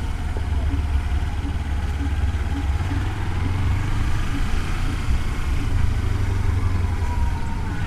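Kawasaki Versys-X 300's parallel-twin engine running steadily, a low rumble picked up by a helmet-mounted microphone while riding.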